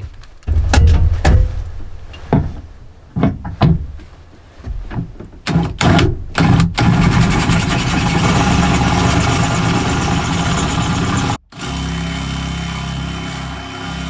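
A cordless drill driving a hole saw into the van's sheet steel. It comes in short stuttering bursts at first, then runs steadily for several seconds, stops for a moment and runs again. The hole saw is dull and struggles to get through the tough steel.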